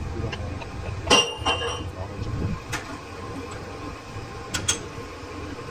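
Metal parts or tools clinking and knocking together, about five sharp strikes with a brief ring, the loudest about a second in, over a steady low machine hum.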